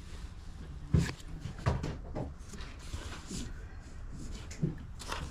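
Handling noise from plush toys being lifted and set down in a cardboard box: a few soft knocks and rustles, the loudest about a second in.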